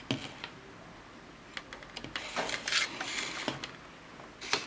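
Handling sounds on a workbench: scattered sharp clicks, with a stretch of light rustling and clatter from about one and a half to three and a half seconds in, as equipment and test leads are set up.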